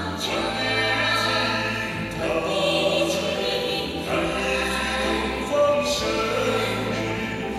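Music with voices singing, over long, held bass notes that change every couple of seconds.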